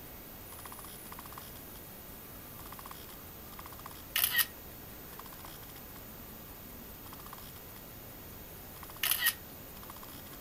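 Two camera shutter clicks about five seconds apart, each a quick double snap, over a faint steady hiss with light regular ticking.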